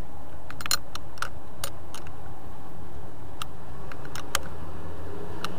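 Ratcheting wrench clicking in short, irregular runs as it turns the clamp nut on a car battery terminal.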